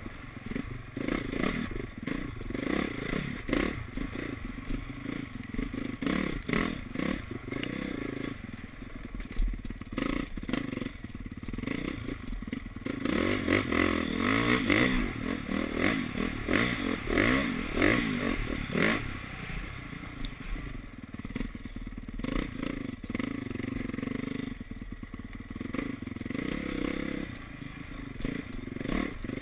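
Honda CRF four-stroke single-cylinder dirt bike engine, heard from on board while it is ridden hard, revving up and down over and over. Rattling knocks from the rough ground run through it.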